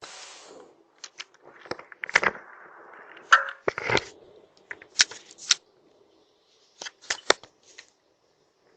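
Rustling and crackling of plants being handled, with a string of sharp snaps and clicks as flower stems are picked.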